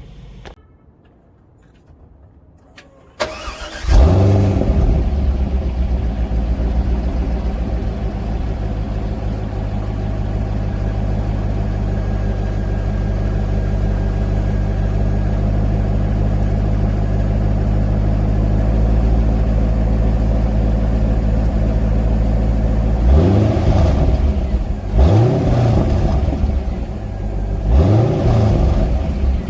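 C5 Corvette Z06's LS6 V8 through an X-pipe and Corsa Extreme mufflers, starting up about four seconds in with a loud flare, then idling steadily. Near the end it is blipped several times in quick revs.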